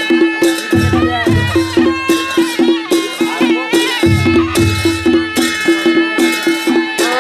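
Panche baja band playing: a shehnai's wavering melody over a steady drum beat of about three strokes a second, with deep drum hits coming in and out.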